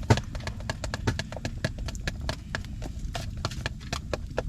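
Homemade Big Mac sauce of mayo, ketchup, mustard, relish and diced onion being stirred in a container, the utensil clicking against the sides in a quick, fairly even run of about four or five clicks a second.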